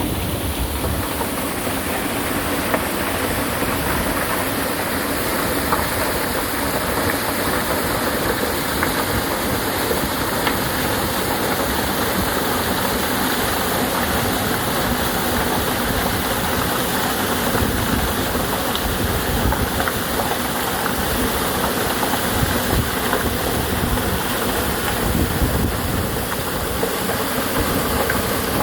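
Mountain stream water rushing over rocks, a steady loud rush with no pauses.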